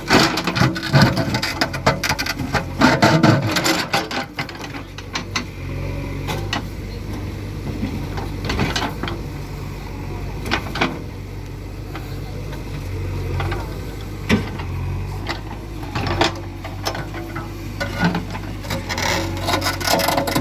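JCB 3DX backhoe loader's diesel engine running steadily, with repeated sharp knocks and clanks of metal and stone as the machine works.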